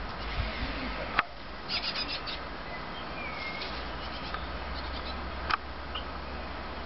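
Great tits calling: a quick run of high, thin calls around two seconds in, typical of a hungry fledgling begging, plus single sharp calls about a second in and again later, over a steady background hiss.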